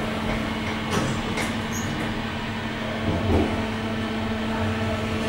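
Inside a new SMW machine-room-less traction elevator car as it travels: a steady hum with low ride rumble and a couple of faint knocks.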